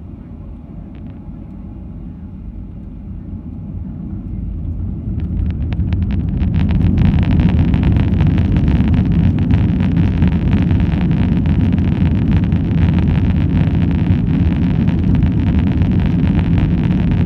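Boeing 737's twin jet engines spooling up to takeoff thrust, heard from inside the cabin. The sound swells over about the first seven seconds, then runs loud and steady as the airliner accelerates down the runway on its takeoff roll.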